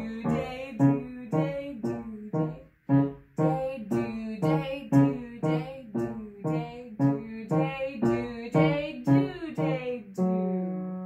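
Grand piano playing a short duple-metre children's piece, with a woman's voice chanting "do-day" on an even beat about twice a second. It ends on a held chord about ten seconds in.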